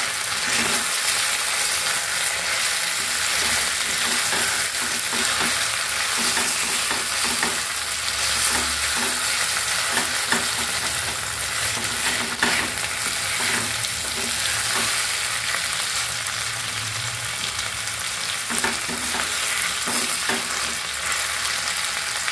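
Rice dumplings and tomato-onion masala frying in oil in a steel pan, a steady sizzle, while a spatula stirs them and now and then knocks or scrapes against the pan.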